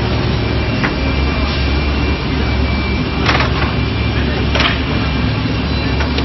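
Industrial brush sanding machine for wooden doors running steadily, with a low hum and a faint high whine. Two short hissing bursts come about halfway through.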